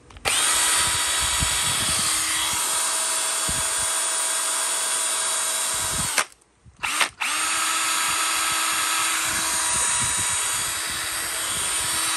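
Panasonic EZ7960 cordless drill driver, on an 18 V battery, spinning up and running steadily with no load. It stops about six seconds in, gives a brief burst a second later, then runs steadily again.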